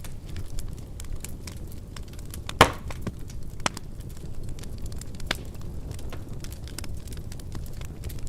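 Wood fire crackling in a fireplace: scattered sharp pops and clicks over a low, steady rumble of flames, with one loud pop about two and a half seconds in.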